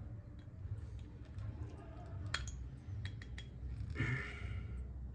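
Scattered sharp metal clicks and scrapes of a tool working at the caseback of a cheap watch, trying to pry the tight-fitting back open.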